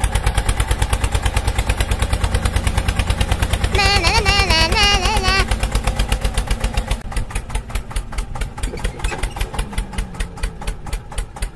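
Tractor engine chugging at a rapid, even beat, easing off somewhat in the last few seconds. About four seconds in, a warbling pitched tone sounds over it for a second and a half.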